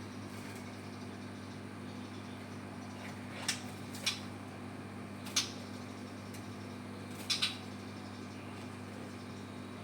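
A steady low mechanical hum, with about five short, sharp clicks or knocks spread through the middle, two of them close together near the end.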